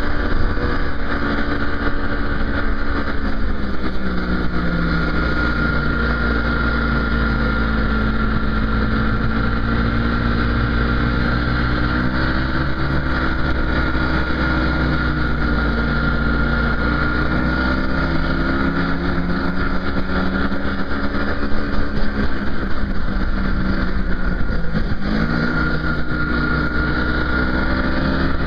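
An engine running continuously, its pitch sagging and recovering slowly every several seconds, with a brief dip near the end, over a steady rumble and a thin high whine.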